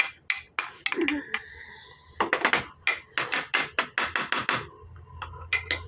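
An irregular run of sharp taps and knocks, some bunched in quick clusters.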